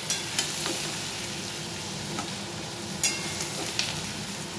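Chopped onion stalks sizzling in hot oil in a metal wok. A metal spatula scrapes and knocks against the pan as they are stirred and scooped out, with the loudest knock about three seconds in.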